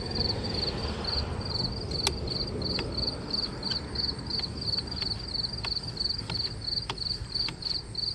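Insects chirping in a steady high rhythm, about three chirps a second, over a low rumble, with one sharp click about two seconds in and a few fainter ticks.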